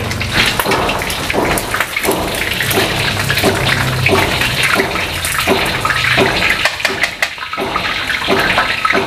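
Pieces of boiled chicken deep-frying in hot oil in a wok: a steady sizzle with many small crackles, as the pieces are turned with a spatula and tongs. The chicken is browned and nearly done frying.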